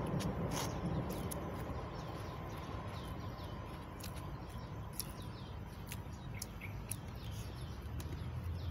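Small birds chirping, a steady run of short, falling calls, with a few sharp clicks.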